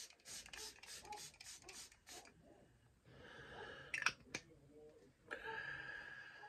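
Faint, quick spritzes from a setting-spray mist pump, about four or five a second, for roughly the first two seconds. Then come softer hissing stretches with two light clicks about four seconds in.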